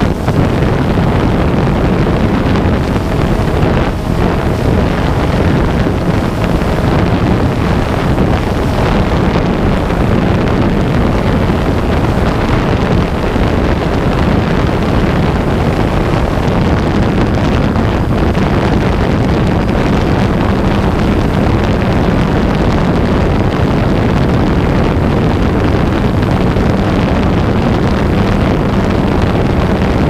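Camera drone's rotors running steadily, heard from a camera mounted on it, with wind rushing over the microphone. A faint steady hum fades out for a few seconds midway and returns.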